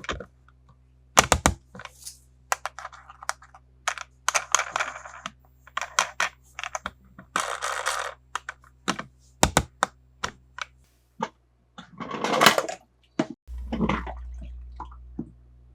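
Plastic toy cars and their packaging being handled: an irregular run of sharp clicks and taps mixed with short crinkling rustles.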